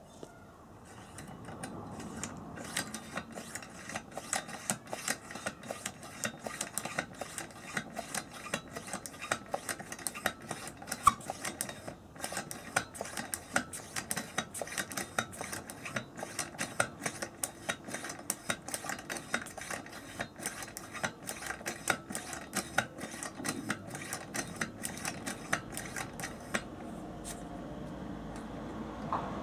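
Hand pump of a Coleman 288A700 gasoline pressure lantern being worked to pressurise the fuel tank: a fast, even run of clicking strokes that stops shortly before the end, when a steady rushing noise rises.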